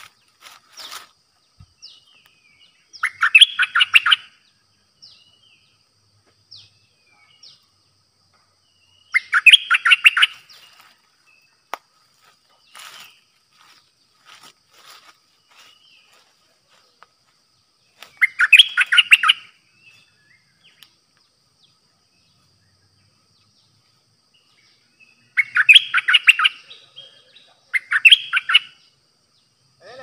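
A caged decoy bulbul singing short, loud phrases about every six to nine seconds, five in all, the last two close together. Faint chirps and a thin steady high tone run underneath.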